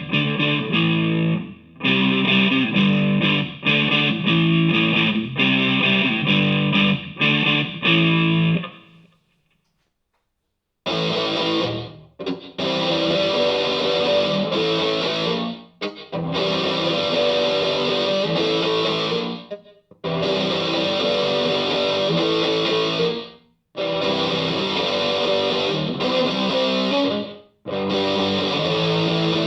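Electric guitar played through a DigiTech GNX3 multi-effects pedal on a distorted preset. The playing stops about nine seconds in and, after a two-second silence, resumes with a brighter tone in phrases separated by short breaks.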